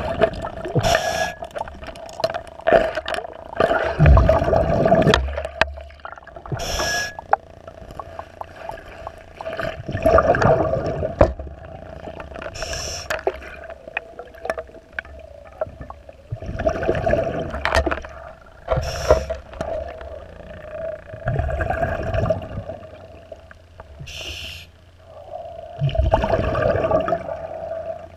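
A scuba diver breathing underwater through a regulator: a rush of exhaled bubbles every five or six seconds, alternating with shorter hissing inhalations, with rubbing and scraping on the fouled boat hull between breaths. A steady hum runs underneath.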